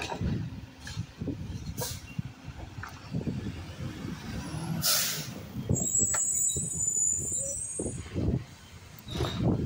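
Mack garbage truck's engine running as the truck pulls away down the street, with a sharp hiss of air brakes about halfway through.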